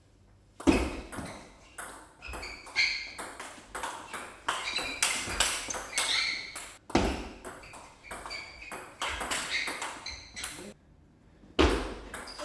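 Table tennis rally: the celluloid ball clicks quickly and alternately off the rackets and the table in a backhand topspin drill. The run of hits starts about half a second in and stops briefly near the end before a new rally begins.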